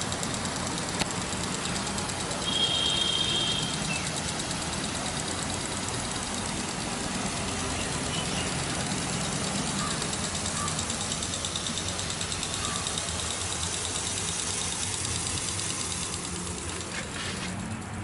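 Rooftop water sprinklers hissing as they spray onto a wet tiled concrete roof, over a steady low hum. A brief high chirp sounds about two and a half seconds in.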